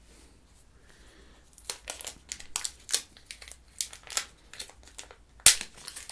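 Protective plastic film being peeled off a new smartphone, crinkling and crackling in a string of short rustles that begin about a second and a half in, with the loudest crackle near the end.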